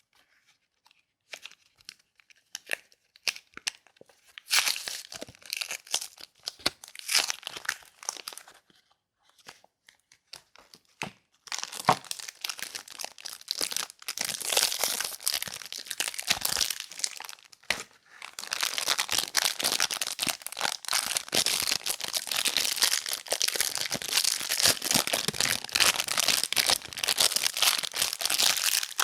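Soap packaging being unwrapped by hand: wrapping crinkling and tearing close to the microphone. A few scattered crackles at first, then longer spells of dense crinkling, continuous through the last third.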